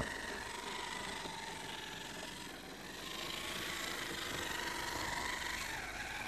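Model railway locomotive running along the track: a steady whirr from its small electric motor and wheels.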